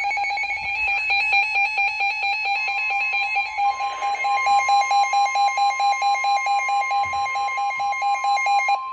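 NOAA Weather Radio emergency alert: the last of the SAME header's warbling data tones, then about three and a half seconds in the steady 1050 Hz warning alarm tone. A weather radio's alert beeps pulse quickly throughout. The alert comes ahead of a severe thunderstorm warning.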